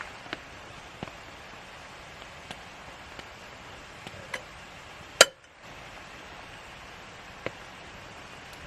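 Campfire crackling: a steady soft hiss with scattered sharp pops, and one loud snap about five seconds in.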